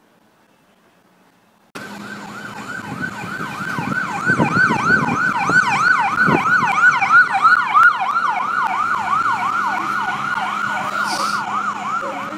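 Emergency-vehicle siren in a fast yelp, rising and falling about three times a second. It starts abruptly a couple of seconds in, after near silence.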